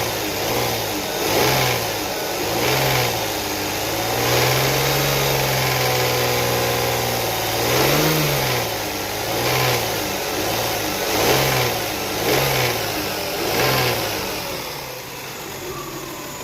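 High-mileage 2002 Toyota Sienna's 3.0-litre V6 revved from idle in about a dozen short throttle blips, with one longer held rev in the middle, then settling back to idle near the end. A rattle that the owner places at the top of the engine comes in only when it is revved.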